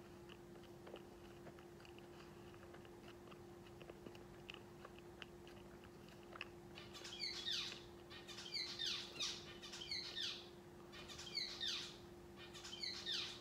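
Faint mouth chewing of stale marshmallow Peeps, soft wet clicks. From about six seconds in, a series of about six high, quickly falling chirps, roughly one a second, is the loudest sound.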